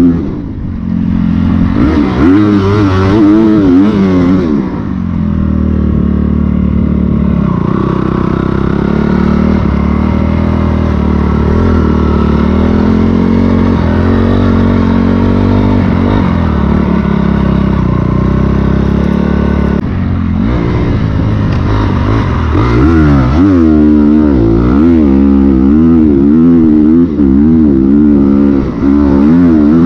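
Dirt bike engine on a trail ride, heard close up: revving up and down with the throttle for the first few seconds, running steadier from about five seconds in, then rising and falling with the throttle again from about twenty seconds in.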